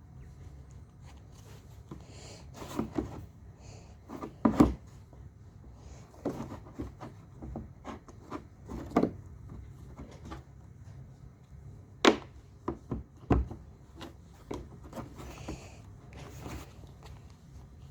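Objects being handled and set down on a hard surface: scattered knocks, thuds and rubbing, with the loudest knocks about four and a half, twelve and thirteen and a half seconds in.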